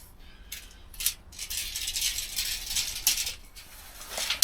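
Irregular light rattling and clicking from gear being handled, a run of short clicks spread through the few seconds.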